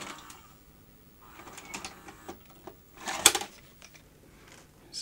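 Handling and opening the case of a Sharp VHS video recorder: scattered clicks and scrapes, with a louder clatter about three seconds in.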